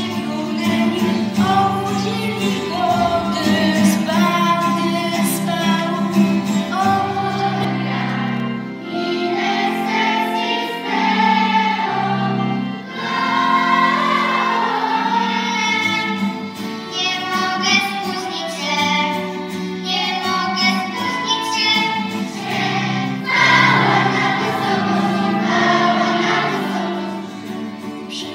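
Children's choir singing a Polish Christmas carol (kolęda) in unison, accompanied by acoustic guitars, flute and accordion.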